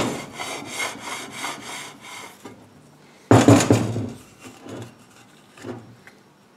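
Steel straightedge rubbed back and forth over a second straightedge coated with blue marking paint, in quick strokes for about two seconds. This is spotting: the paint transfers to the high spots that are then scraped down. A louder knock about three seconds in, as the pieces are handled.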